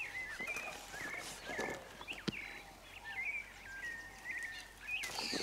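Birds chirping with many short, rising and falling calls, over occasional rustles and knocks from a fruit-picking pole moving through mango-tree branches.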